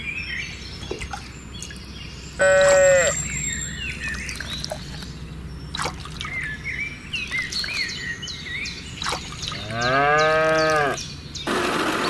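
Cow mooing twice: a short, higher moo falling in pitch about two and a half seconds in, and a longer, deeper moo that rises and falls near the end, with bird chirps in between.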